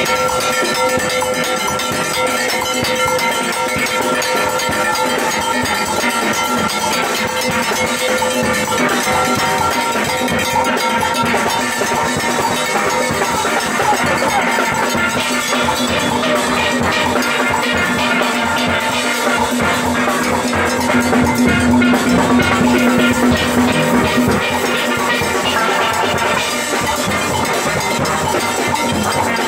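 Steel band playing on steelpans, with shakers and other hand percussion keeping a steady beat.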